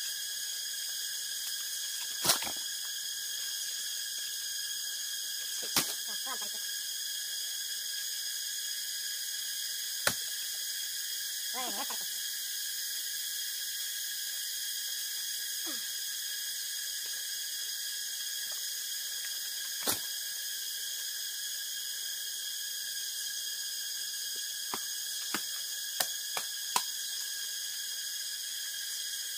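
Sharp knocks and cracks of bamboo stalks being struck and broken, a few scattered single hits and a quick cluster near the end, over a steady high-pitched drone.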